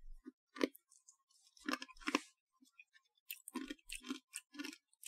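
Konpeito, hard star-shaped sugar candies, being crunched between the teeth: short, crunchy bites coming in a few clusters with pauses between.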